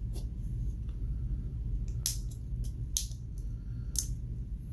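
A few small, sharp clicks of a metal hand tool working at the battery in a quartz watch movement, four in all, the last three about a second apart, over a steady low hum.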